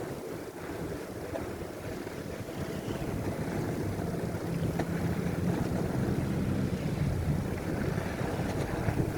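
Wind buffeting the microphone of a bicycle-mounted camera riding through a snowstorm. A low steady hum builds in under the wind from about a third of the way in.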